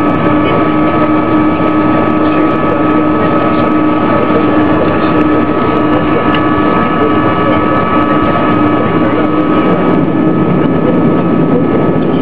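Boeing 737-200's Pratt & Whitney JT8D engines heard from inside the cabin on landing, a steady whine over loud rushing noise. Near the end a deeper rumble builds as the engine's clamshell thrust reversers open.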